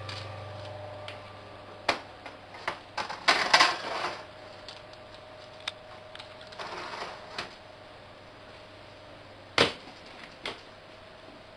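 Irregular clicks and knocks from handling a stainless steel laboratory hot air oven, with a cluster of rattles a few seconds in and one loud bang near the end as its metal door is shut.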